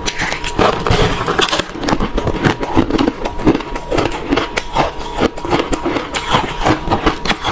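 Someone chewing refrozen crushed ice, a dense, continuous run of loud crunches and cracks.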